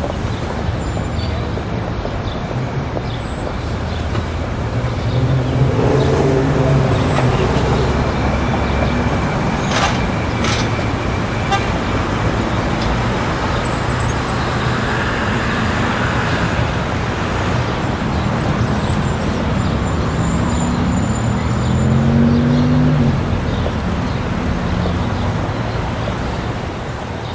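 Busy city street traffic: steady road noise as cars drive past, their engines rising and falling, with a car horn tooting.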